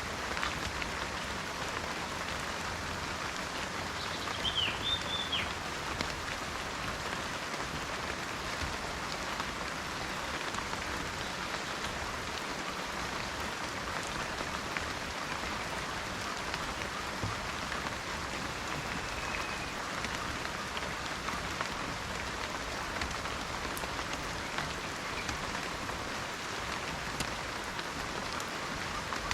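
Steady rain falling, an even patter. A bird gives a short call of a few quick chirps about five seconds in, and a faint one near twenty seconds.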